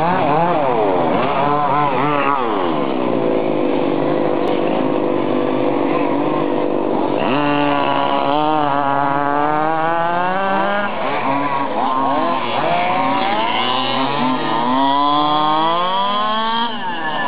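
Small two-stroke engines of gas-powered RC model buggies, revving up and down over and over, pitch climbing and falling with each burst of throttle, with two or more engines overlapping at times and a sharp rev-up about seven seconds in.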